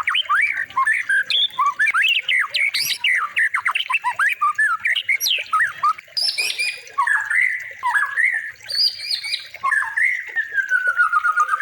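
Songbird singing a fast, varied song of chirps, slurred whistled notes and short harsh calls. Near the end it holds one long whistle that slides down in pitch.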